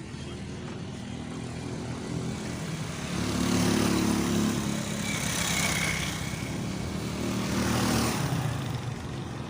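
Road traffic: a motor vehicle's engine running, getting louder about three seconds in and fading again near the end, like a vehicle driving past.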